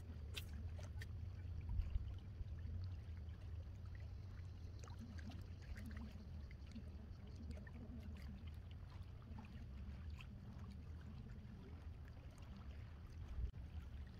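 Water lapping and trickling, with scattered small splashes and ticks over a steady low rumble.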